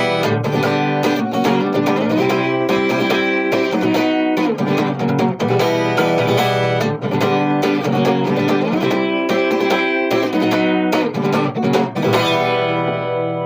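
Guitar strummed in a steady rhythm of chords, closing on a final chord that rings and fades near the end.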